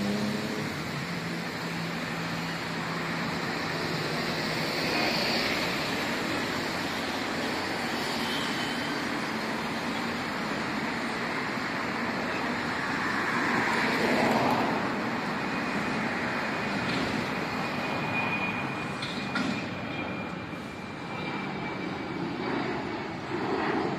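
Jet airliner passing overhead, its engine noise swelling to a peak about halfway through, over the steady running of diesel container-handling machinery and trucks.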